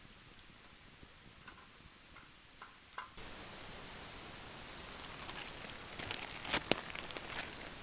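Wood fire crackling in a fire pit, with scattered sharp pops; about three seconds in the sound jumps louder and the crackling thickens, with the loudest pops near the end.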